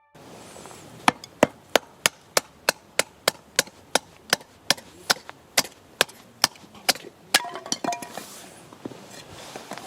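Wood being struck over and over: about twenty sharp, evenly spaced knocks, about three a second, then lighter clattering near the end.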